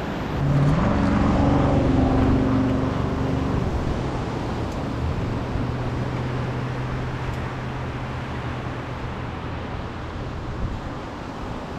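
A motor vehicle's engine drones at a steady low pitch over surf and wind noise. It rises a little in pitch about half a second in, is loudest in the first few seconds, then fades slowly.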